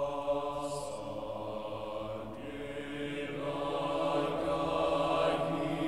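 Mixed choir singing held chords, the sound slowly growing louder.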